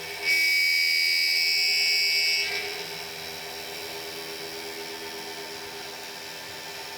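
Milling machine running through a cut, with a loud, steady high-pitched whine for about two seconds starting just after the beginning, then only the machine's steady running.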